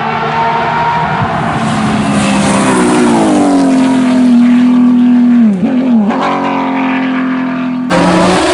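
Porsche sports car engine running hard, its pitch climbing about three seconds in and then held high, with a brief dip and jump in pitch around six seconds in like a gear change. Near the end it cuts abruptly to a different engine sound.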